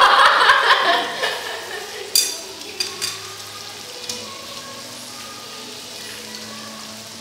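A group of people laughing loudly for about the first second, then a few sharp clinks of glasses and dishes during the meal, over a steady background hiss.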